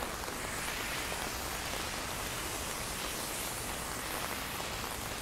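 Heavy rain falling steadily on an umbrella overhead and the wet street.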